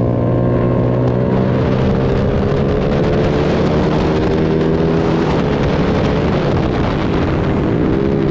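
Motorcycle engine running at speed under steady throttle, heard onboard with wind rushing over the microphone; its note eases slightly, then dips and climbs again about seven seconds in.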